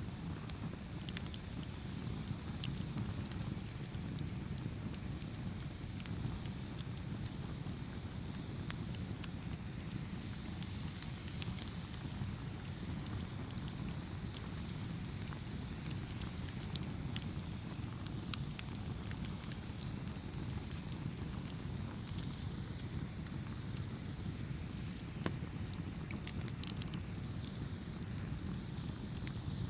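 Wood campfire burning with a steady low rumble and frequent scattered crackles and pops.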